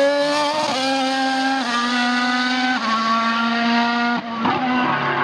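Formula One car's turbocharged 1.6-litre V6 engine running hard at high revs, its note jumping to a new pitch at each gear change, three times in the first three seconds. The note breaks off briefly about four seconds in and then carries on.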